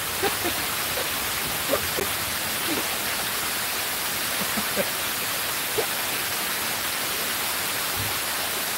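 Steady rush of water cascading down the steps of a large fountain.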